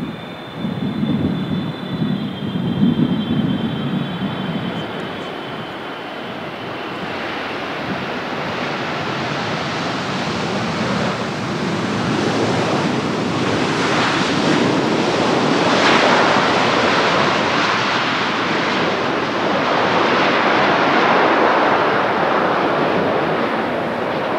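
Jet airliner engines roaring, building up over about ten seconds and then holding steady and loud, with a thin high engine whine fading out at the start.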